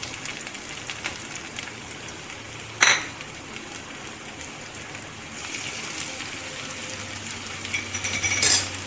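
Chopped ginger and garlic sizzling and crackling in hot oil in a kadai, with one sharp knock about three seconds in. The crackling grows louder just before the end.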